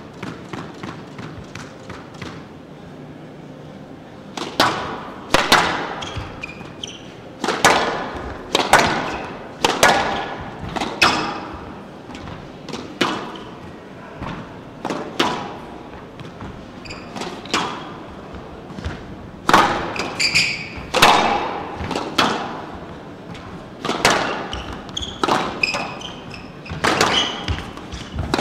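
A squash rally: the ball cracking off rackets and the court walls about once a second, starting about four seconds in, with short squeaks of court shoes on the wooden floor between some of the shots.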